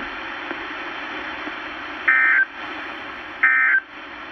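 Emergency Alert System SAME end-of-message data bursts on NOAA Weather Radio: two short, identical two-tone digital squawks about a second and a half apart over steady radio hiss, signalling the end of the warning message.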